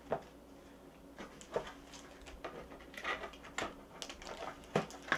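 Plastic packaging rustling and crinkling, with scattered light clicks and taps, as a headset is worked loose from the ties strapping it into its box.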